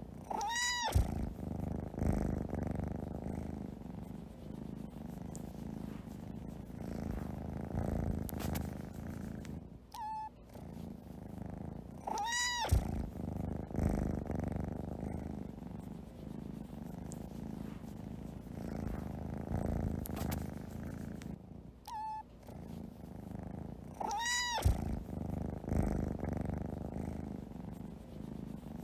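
Domestic cat purring steadily. Three meows, each rising and then falling in pitch, come about twelve seconds apart, with a brief short high note shortly before the second and third.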